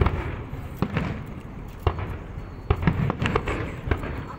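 Aerial fireworks going off: a string of sharp bangs and cracks over a low rumble, with a quick cluster of bursts about three seconds in.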